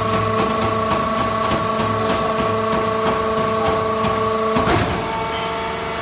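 Textile fiber baler machine running with a steady whine and regular clicking about twice a second. Near the end a sudden clank comes, and the whine changes pitch after it.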